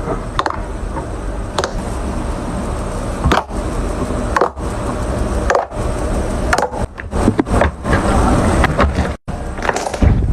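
Slime squeezed and poked by hand, making dense crackling and crunching pops. The pops come thicker in the second half, with a sudden brief break about nine seconds in.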